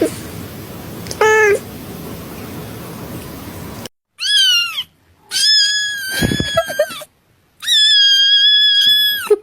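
A cat meowing: one short meow over a steady hiss, then, after a sudden cut, three loud high-pitched yowls, the last two each held steady for more than a second.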